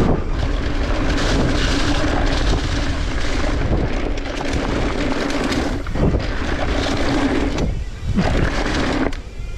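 Sawmill machinery running: a loud, steady mechanical drone with a constant hum, dipping briefly a few times near the end.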